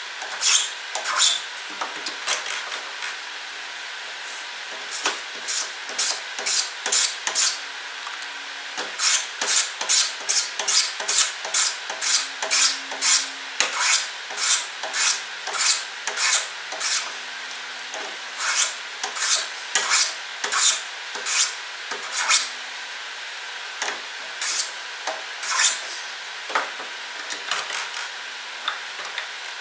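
Jack plane shaving the corners off a square pine blank in a vise: a long run of short rasping strokes, about one to two a second at the busiest, each a plane blade cutting a shaving along the wood.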